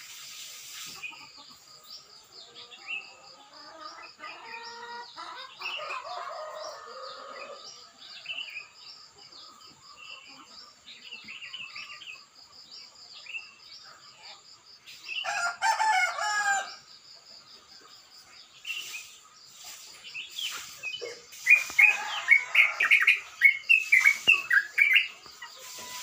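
Yellow-vented bulbul (crucukan) singing: scattered chirps, then a fast, harsh run of loud short notes in its last few seconds. A rooster crows once about halfway through, over a steady high pulsing trill.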